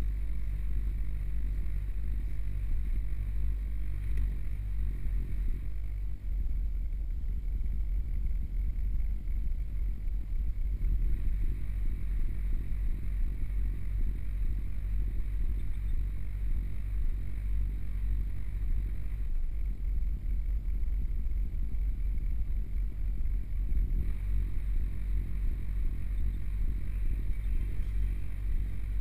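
Automatic car wash heard from inside the car's cabin: a steady low rumble with water jets spraying against the body and windows, the spray growing heavier in stretches.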